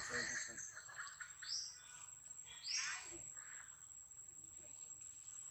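Two short, high-pitched animal calls about a second apart, each sweeping down in pitch, over a thin, steady high whine.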